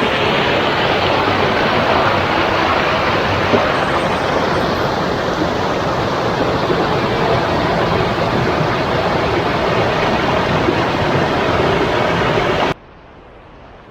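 Steady rush of flowing water over rapids, cutting off suddenly near the end.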